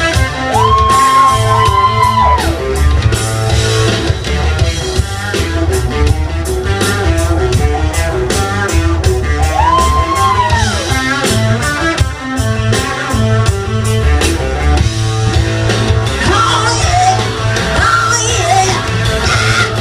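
Rock music: a band with drums, bass and electric guitar, and a singer who holds two long high notes, one near the start and one about ten seconds in.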